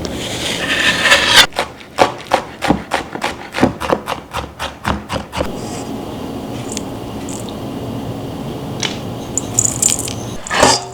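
A knife on a wooden cutting board: a scrape, then quick, even chopping at about four strokes a second that stops about five seconds in, followed by a few scattered knocks.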